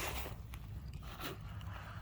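Campfire with two brief scraping crunches, one at the start and one about a second later, over a low steady rumble and the odd faint crackle.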